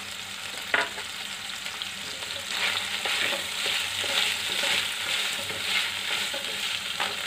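Chicken liver pieces sizzling in hot oil in a kadhai, stirred with a wooden spatula scraping against the pan. The sizzle grows louder from about two and a half seconds in as the stirring gets going, with a short knock about a second in and another near the end.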